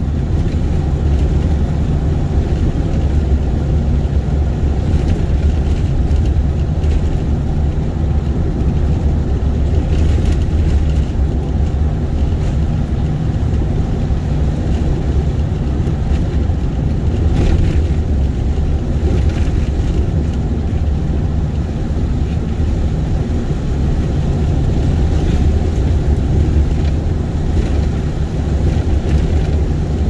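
A pickup truck driving on the road: a steady low engine and tyre rumble, with no change in pace.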